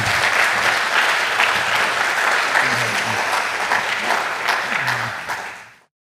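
Audience applauding, a dense patter of many hands clapping with a few voices under it, fading out and cutting off shortly before the end.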